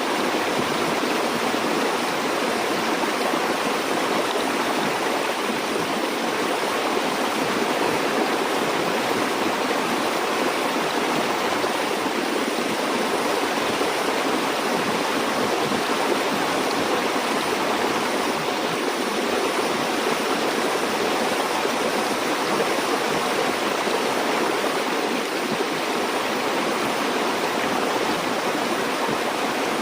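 River or stream water flowing steadily, a continuous even rushing with no breaks.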